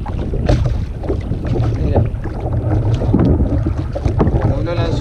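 Wind buffeting the microphone and water slapping against a plastic sit-on-top kayak's hull, with scattered knocks and splashes from the line and boat being handled. Near the end there is a brief voiced sound, like a grunt.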